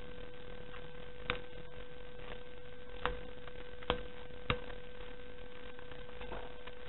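Scissors snipping paper: four short sharp snips spread over about three seconds, over a steady electrical hum.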